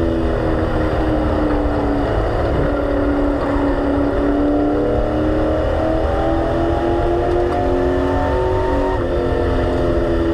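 Race car engine heard from inside the cockpit at speed. Its pitch sags briefly, climbs steadily as the car accelerates down the straight, then drops suddenly near the end as the driver lifts for the next turn, over a constant low rumble.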